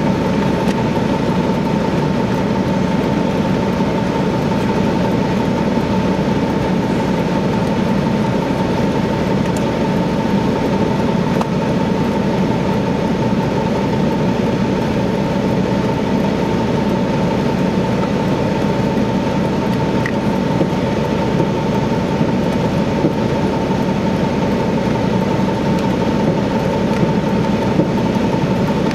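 Semi truck's diesel engine idling steadily, heard from inside the cab, with a steady whine on top.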